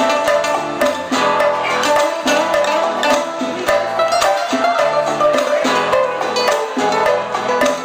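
A live band playing old-school Cuban music, with bright plucked strings picking rapid notes up front.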